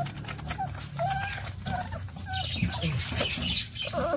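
A wet Labrador puppy whimpering in a string of short, high whines during a bath she dislikes and is trying to escape. A short hissy noise comes about two and a half seconds in.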